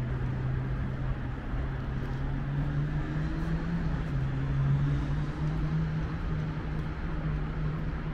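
An engine running with a steady low hum that shifts slightly upward in pitch midway, over general outdoor city noise.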